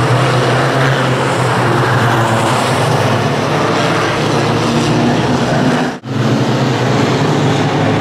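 Westfield race cars' engines running at speed on the circuit: a steady, loud engine and road noise that breaks off for an instant about six seconds in and then resumes.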